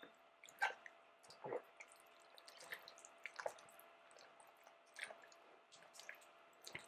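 Sliced strawberries in a thick strawberry sauce being stirred with a wooden spoon in a glass bowl: faint, irregular wet squishes and squelches.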